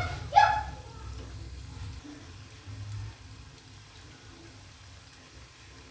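Besan pakoras deep-frying in hot oil in a steel pan: a faint, steady sizzle of bubbling oil.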